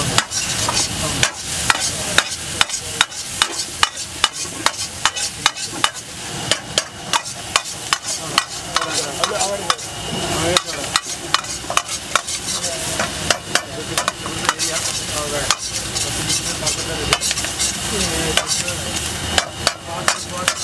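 Metal ladle stirring and scraping in a steel wok, striking it with repeated sharp clanks a few times a second, over the steady sizzle of chopped vegetables frying in hot oil.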